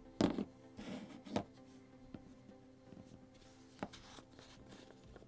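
Small jars of shimmer pigment being handled: a cluster of knocks and scrapes near the start, then a few single clicks and taps as a jar's screw lid is turned and the jars are set down.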